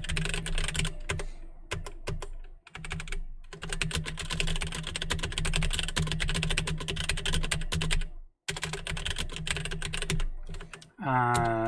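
Fast typing on a computer keyboard: rapid runs of keystrokes broken by two short pauses, with a brief voice sound near the end.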